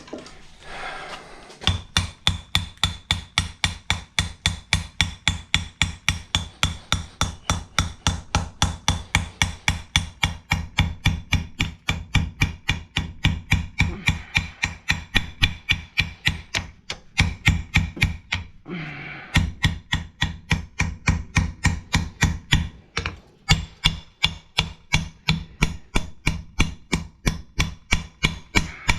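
Blacksmith's hammer striking hot steel on an anvil in a steady rhythm of about three to four blows a second, the anvil ringing with each blow. The hammering breaks off briefly twice, about two-thirds of the way through and again soon after.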